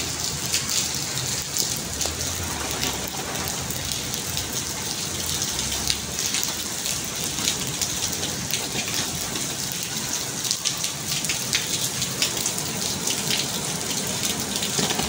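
Steady rain falling on wet paved ground, a constant hiss dotted with many sharp ticks of single drops.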